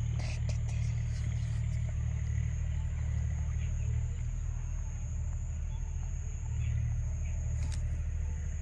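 Steady low hum of an engine or motor running without change, with a faint steady high-pitched whine above it.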